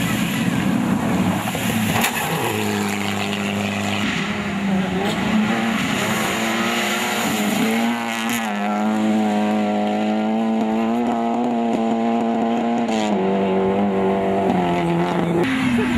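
Rally car engine running hard at high revs on a dirt stage. Its pitch holds steady for stretches, then jumps up or down several times, with a falling sweep near the end.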